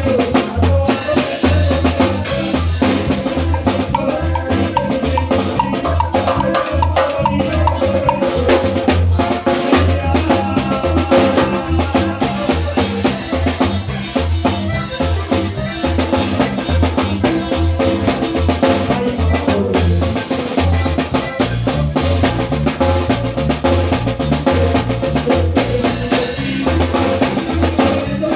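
Norteño zapateado music playing: a steady, even beat on drum kit and bass under sustained melody.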